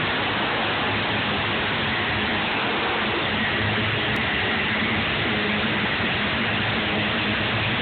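Monster truck engines running, heard as a steady, loud, even noise with a faint low hum beneath it.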